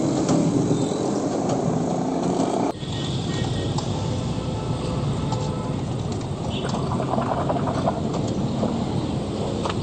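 Steady street noise with traffic running, with an abrupt change about three seconds in.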